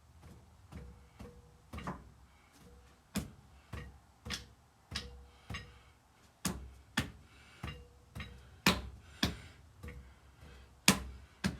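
Repeated sharp taps, about two a second, driving a Caterpillar Sixty piston down through a band-type ring compressor into its cylinder. A faint metallic ring hangs after some of the taps.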